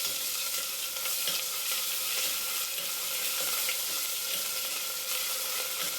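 Hot oil sizzling steadily in a pan as a tempering of mustard seeds, asafoetida, garlic and ginger paste fries, with light scrapes of a spoon stirring it.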